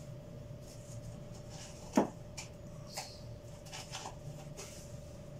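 Pen writing on paper: short scratchy strokes and a few light taps, with one sharp click about two seconds in, the loudest sound. A steady faint hum runs underneath.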